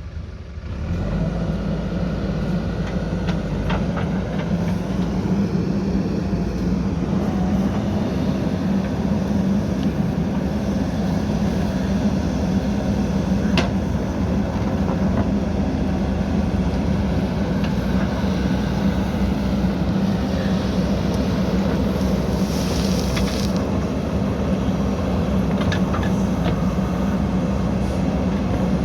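JCB backhoe loader's diesel engine running steadily under load while digging, growing louder about a second in. A few short, sharp clanks sound over the drone.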